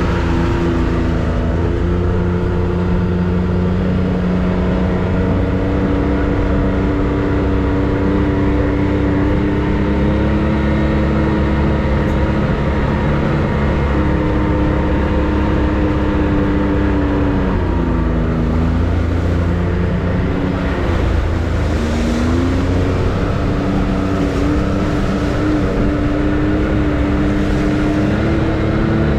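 Can-Am Maverick X3 side-by-side's turbocharged three-cylinder engine running steadily under way, its pitch dropping about two-thirds of the way through and then climbing again as it speeds back up.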